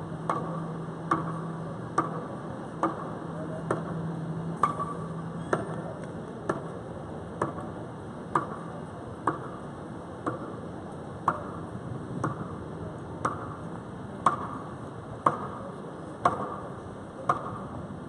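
Sharp metallic knocks repeating steadily, about one a second, each with a short ring. A low hum runs under the first few seconds.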